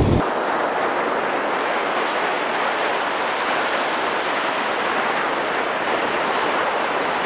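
Ocean surf breaking on a beach: a steady, even hiss of waves.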